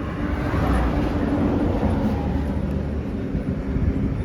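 A motorcycle engine running with steady road noise, a low rumble with a faint hum that fades about halfway through, as the bike is tried out with its refitted chain.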